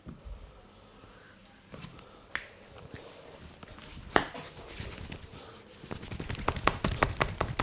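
Hand massage: a few scattered slaps and claps of hands on skin, then from about six seconds in a fast run of rhythmic slaps, several a second, as the masseur does percussive tapping.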